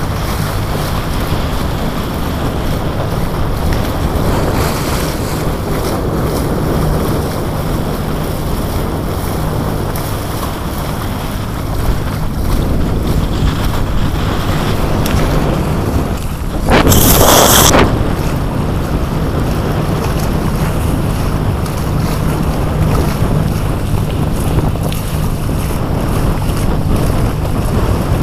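Water of a sailing trimaran's bow wave rushing past the hull, with wind buffeting the microphone. About two-thirds of the way through, a sudden louder rush of noise lasts about a second.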